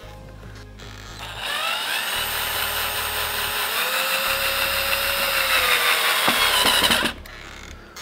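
Pink Hippoo cordless drill driving a screw into the interior housing of a keyless deadbolt. The motor whines for about six seconds, starting about a second in and stopping near the end, its pitch rising as it spins up and shifting under load.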